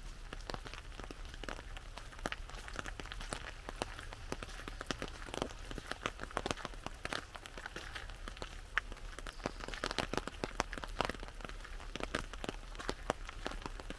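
Rain falling on an umbrella: many separate drops hitting the canopy at an irregular rhythm over a steady light patter.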